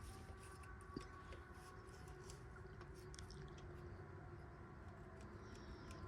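Near silence: faint background hum with scattered faint ticks and one slightly sharper click about a second in.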